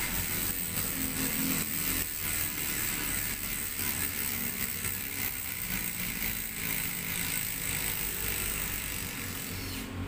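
Rear bicycle hub's freehub ratchet clicking as the hub and cassette body are turned by hand, with light metallic handling of the parts.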